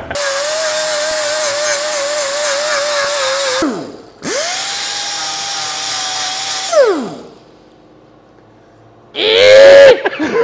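Handheld power tool run twice, each time at a steady whine and then winding down with falling pitch; the second run is a little higher in pitch. A short loud burst follows near the end.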